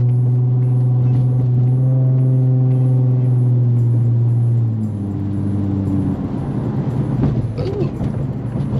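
2004 Infiniti G35 coupe's VQ35 V6 engine droning steadily under throttle, then dropping in pitch about five seconds in as it eases off, leaving a rougher mix of engine and road noise.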